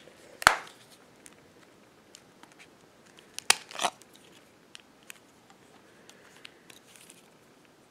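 Plastic snaps and scraping as the back cover of a Motorola V220 flip phone is unclipped and its battery pried out: a sharp snap about half a second in, another snap and a short scrape around three and a half seconds in, with small ticks of handling between.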